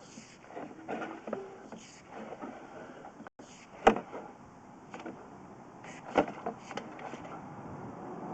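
Scattered knocks and clicks from a sewer inspection camera being pushed along its rod through the pipe, with two sharp knocks a little under four seconds and about six seconds in over a low rumble.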